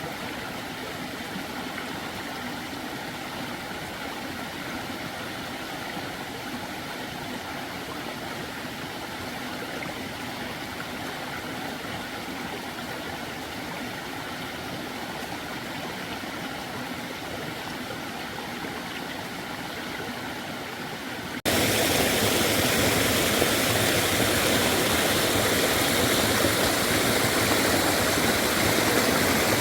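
Steady rushing of a stream, which cuts suddenly to a louder, hissier stretch of running water about two-thirds of the way through.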